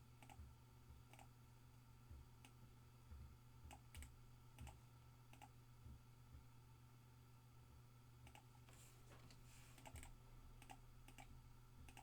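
Faint, irregular clicks of a computer mouse, one every half second to a second, as a list is run through a randomizer several times.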